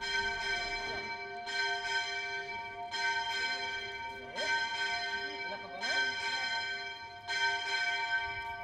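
A single church bell tolling slowly, struck about every second and a half, each stroke ringing on into the next.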